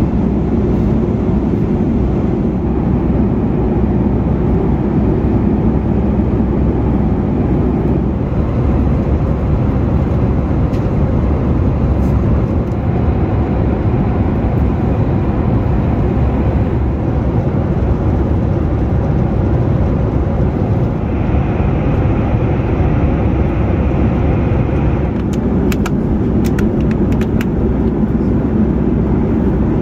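Steady cabin noise of a Boeing 737 MAX 9 airliner at cruise, a dense low rush of airflow and engine noise heard from a window seat over the wing. A few faint clicks come near the end.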